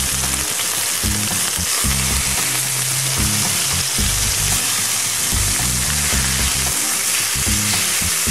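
Seasoned mangrove snapper fillets sizzling steadily in hot olive oil in a cast iron skillet, with a spatula moving and scraping the fillets in the pan.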